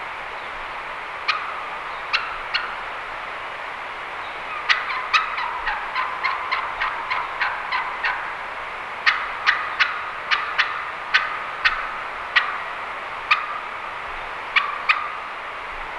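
Turkey call sounding sharp hen-turkey yelps: a quick run of about a dozen notes a few seconds in, then spaced single notes and pairs. It is a hunter calling to draw in a gobbler.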